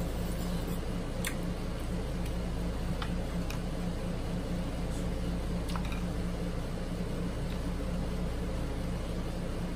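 A steady low hum of room noise, like a running fan, with a few faint clicks and smacks from eating and handling mussel shells.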